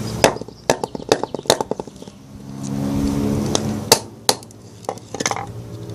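A hammer knocking on the back of a knife blade to drive it into a wooden log: a run of sharp knocks, quick in the first two seconds and sparser after. A passing car's engine swells and fades in the middle.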